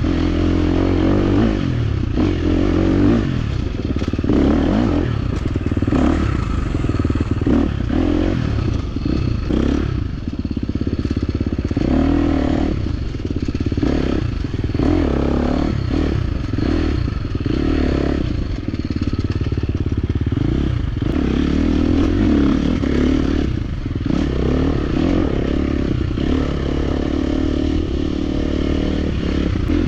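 Dirt bike engine running on a trail ride, its revs rising and falling again and again, with clattering knocks from the bike over rough ground.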